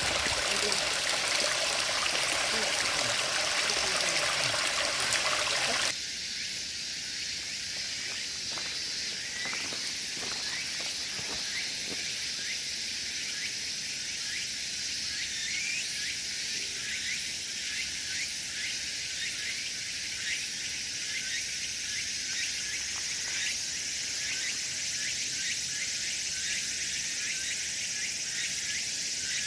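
A stream of running water runs for about the first six seconds, then cuts off abruptly. After the cut, insects chirp rapidly and continuously over a steady high-pitched insect hiss.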